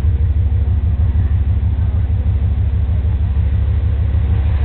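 A steady low rumble with a fast, even pulse and no change in level.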